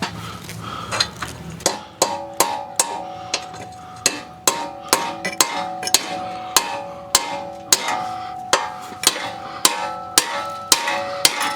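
Hammer tapping a socket down onto a rust-crusted exhaust manifold nut: sharp metal-on-metal strikes, each with a short ringing tone, about two to three a second from roughly two seconds in.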